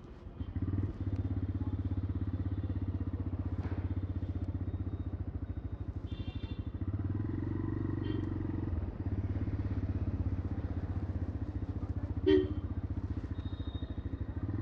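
Motorcycle engine running steadily while the bike is ridden, its pulsing note getting louder about half a second in. A short, loud, pitched beep about twelve seconds in.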